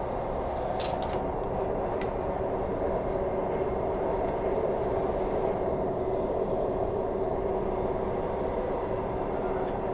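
Transperth Bombardier B-series electric multiple unit heard from inside the carriage while running between stations: a steady rumble of wheels on rail with a steady hum, and a few faint clicks about a second in.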